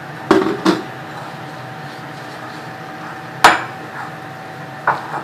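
Bowl and utensil knocks and clinks while puri dough is mixed with water: two sharp clinks close together near the start, a louder one about three and a half seconds in, and a lighter one near the end, over a steady background hum.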